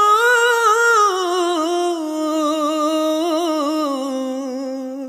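Song vocal without words: a single voice humming a long held note, then sliding down in pitch through small wavering turns, growing quieter toward the end.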